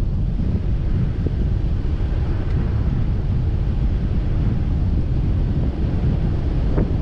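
Wind buffeting the microphone of a camera on a vehicle driving a dirt track: a steady low rumble, with a few light knocks.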